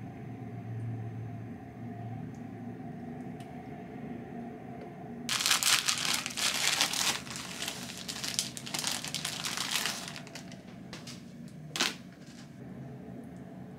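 Plastic bag of English muffins crinkling loudly for about five seconds as it is handled, after a quiet stretch of low hum. A few sharp knocks follow near the end, the loudest just before the muffin halves appear on the plate.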